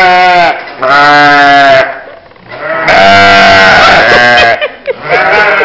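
Sheep bleating loudly at close range: one call ends just after the start, then three more long, wavering bleats follow, the third the longest.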